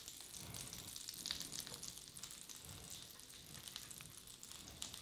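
Butter and olive oil sizzling faintly in a stainless-steel frying pan, with English muffin halves toasting in the hot fat.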